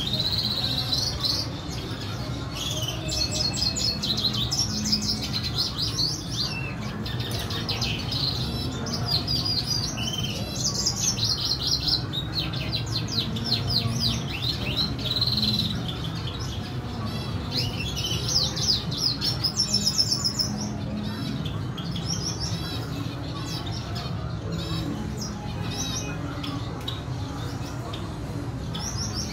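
Caged red siskins chirping and twittering in quick, rapid trains, busiest for the first twenty seconds and sparser after, over a steady low hum.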